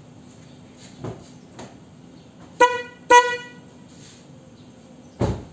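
Two short toots about half a second apart from the high-tone unit of a Denso snail horn. It is sounded on its own while being tested. A dull thump follows near the end.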